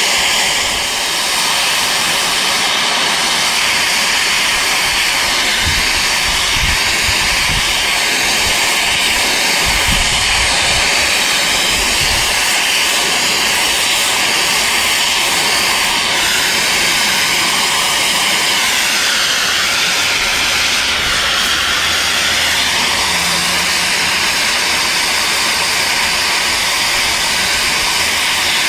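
Multiplaz 3500 steam-plasma torch hissing steadily, with a faint constant whistle, as it heats a cast-iron gear to braze bronze filler onto its worn teeth.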